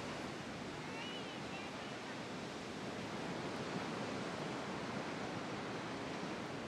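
Ocean surf breaking on a beach: a steady, even wash of noise.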